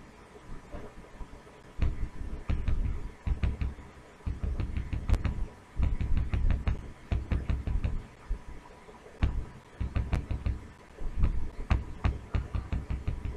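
Computer mouse clicking and scrolling close to the microphone as a page is scrolled down. The clicks come in rapid runs with dull thumps, in several bursts separated by short pauses.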